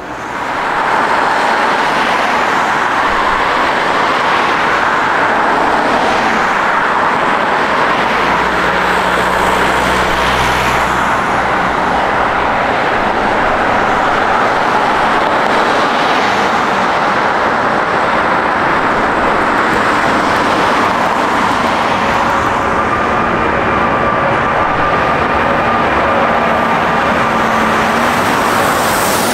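Jet airliner engines, a loud, steady rushing noise that swells in sharply about a second in and holds. A couple of faint steady tones show through near the end.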